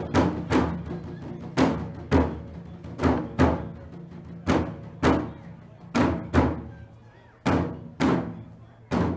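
Background music with a steady beat: heavy drum hits in pairs, a pair about every second and a half, over sustained low notes.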